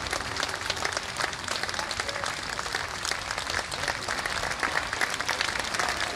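Audience applauding steadily at the end of a band performance, many hands clapping at once.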